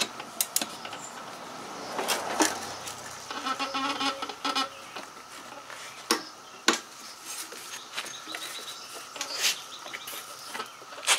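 Sharp metallic clicks, a few seconds apart, from a 3/8-inch click-type torque wrench being worked on a lawn mower blade's mounting bolt. The loudest click comes near the end, when the wrench reaches its set 40 foot-pounds.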